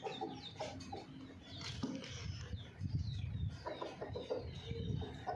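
Chickens clucking, with a busy mix of short calls and brief high chirps throughout.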